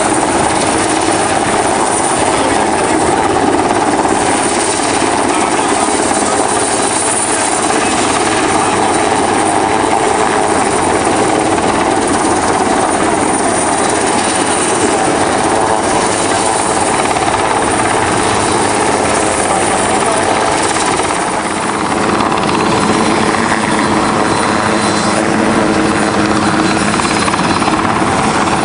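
Helicopter hovering, its rotor and turbine engine running steadily and loudly.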